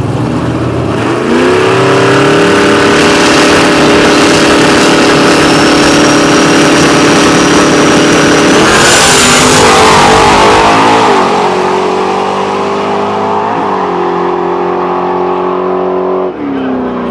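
Drag racing car engine revving up about a second in and holding at high revs, with a burst of noise and a drop in pitch about halfway through. It then runs steady at somewhat lower level before climbing again near the end.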